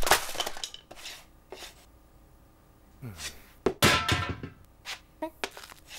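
Cartoon sound effects of objects dropping and clattering onto a cluttered floor. A clatter of impacts comes at the start, then a falling tone about three seconds in, and a second loud clatter with ringing follows.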